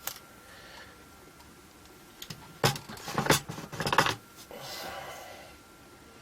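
Clicks and clatter of small tools and wires being handled on a workbench while soldering speaker leads, a cluster of sharp knocks about two to four seconds in, followed by a soft hiss lasting about a second.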